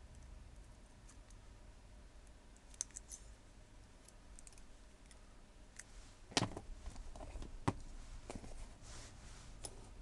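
Faint metallic clicks of a pick working in a small brass Regia padlock, then a few knocks and a rattle of metal as the opened padlocks are handled and set down, the loudest knock about six and a half seconds in.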